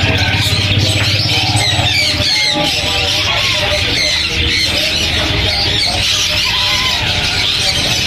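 A dense, constant chorus of many caged small birds chirping and twittering at once.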